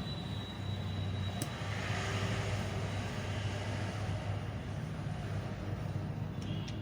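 Steady background noise with a low hum, with a single faint click about a second and a half in.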